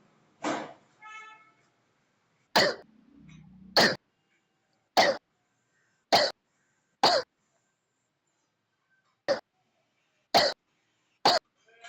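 A person coughing: about nine single, sharp coughs roughly a second apart, with dead silence between them.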